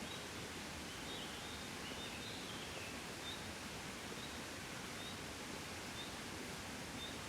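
Gentle wind blowing as a steady, even rush. A small bird gives a short high chirp about once a second, with a brief twittering phrase in the first few seconds.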